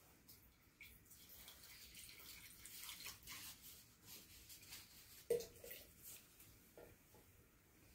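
Faint trickle of hot water poured from a bamboo ladle into a tea bowl. About five seconds in there is one sharp knock with a short ring as the ladle is set back on the iron tea kettle, followed by a few light clicks.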